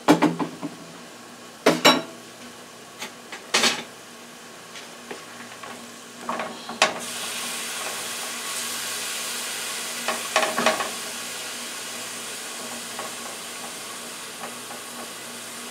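Chopped onions and garlic frying in olive oil in a stainless steel skillet, with a spatula scraping and tapping the pan several times as they are stirred. The sizzle comes up louder about seven seconds in and holds steady.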